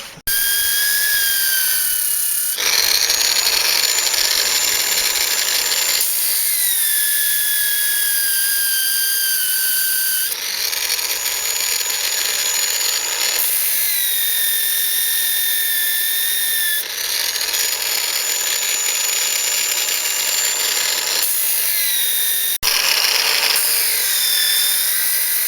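Electric grinder running at high speed, grinding the secondary bevel on a silver steel knife blade: a high whine over a steady grinding hiss. The whine's pitch sags and recovers several times, and the sound breaks off briefly near the end.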